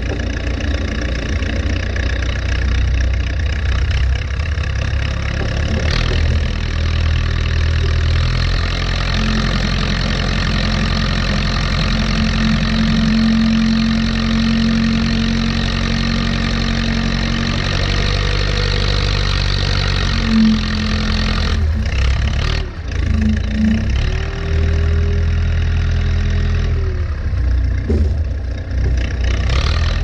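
A 1979 Allis-Chalmers 715B backhoe's diesel engine runs steadily while its front loader bucket pushes snow. A whining tone comes and goes over the engine in the second half.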